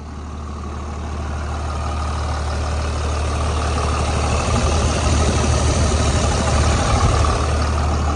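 A Dodge Ram's Cummins diesel engine idling steadily, still warming up after a cold start. It grows louder over the first few seconds as it is heard close over the open engine bay.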